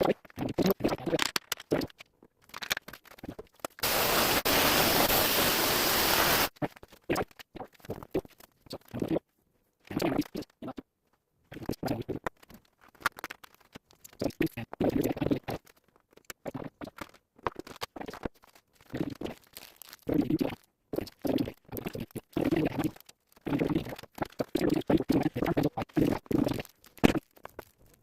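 Small pen-kit parts being handled: short, irregular clicks, knocks and rustles. About four seconds in, a steady hiss runs for about two and a half seconds, then cuts off.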